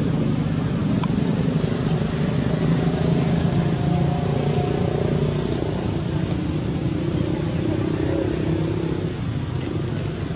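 Steady hum of a motor vehicle engine running, swelling a little in the middle and easing off near the end.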